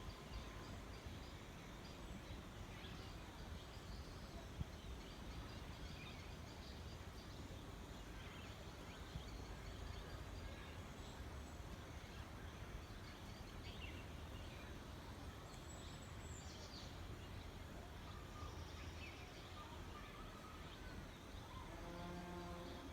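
Faint rural outdoor ambience: a steady low rumble and hiss with scattered short bird chirps, one of them falling in pitch partway through. Near the end there is a brief held, pitched call.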